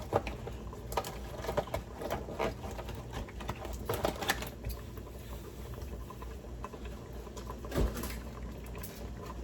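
Stovetop cooking sounds from a pot of tomato dumplings: scattered light clicks and pops over a steady low hum, with one louder knock about eight seconds in.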